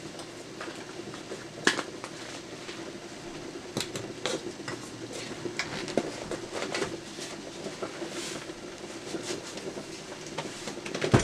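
Scattered light clicks and taps of kitchen containers being handled while seasoning is shaken into a dish of flour, over a steady low hum. A louder knock comes right at the end.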